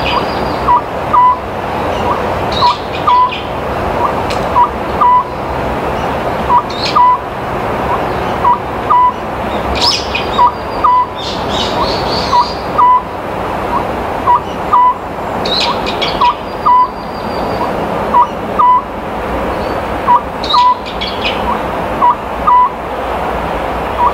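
Oriental scops owl calling: short, low whistled notes in phrases of two or three, repeated steadily over and over. Higher chirps of other small birds come in now and then.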